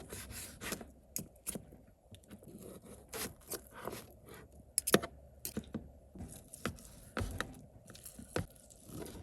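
A knife cutting a cooked steak into smaller pieces: irregular scrapes and clicks, with a sharper click about five seconds in.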